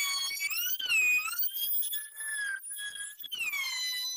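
Electric router running at high speed while cutting a groove in a laminate-faced plate; its high whine dips and recovers in pitch several times as the bit bites into the work.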